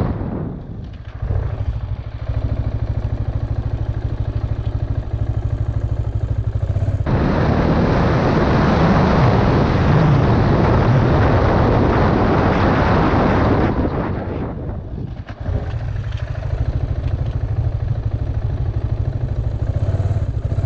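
KTM Duke motorcycle engine running at low speed. About seven seconds in, a sudden loud rush of wind and engine as the bike speeds up, lasting about seven seconds. It dies away sharply as the bike brakes, and the engine then runs steadily at low speed again.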